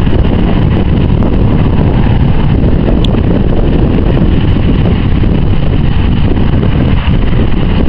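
Turboprop engines of a C-130J Hercules running steadily as it taxis, a constant drone with a faint high whine, mixed with heavy wind rumble on the microphone.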